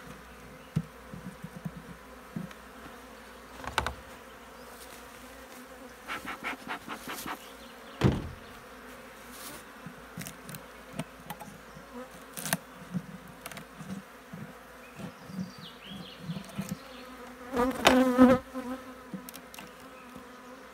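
Honeybees buzzing steadily over an open hive, with wooden knocks and scrapes as the hive frames are worked loose with a hive tool. The loudest knock comes about eight seconds in, and the buzzing swells briefly near the end.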